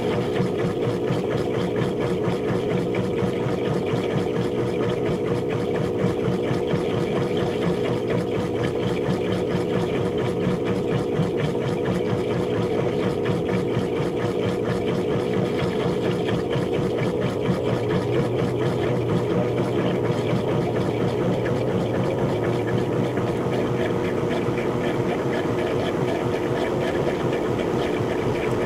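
GE washing machine on its spin cycle: a steady motor hum with the fast, even rumble of the drum spinning.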